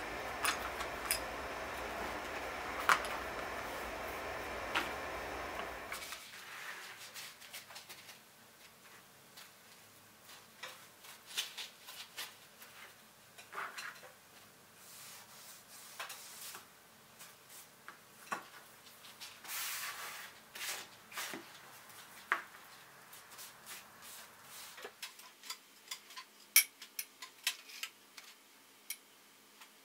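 Handling sounds of leatherworking at a table: a steady hiss with a few clicks for the first six seconds, then scattered light clicks, taps and short scrapes of tools and leather pieces set down and moved on a cutting mat.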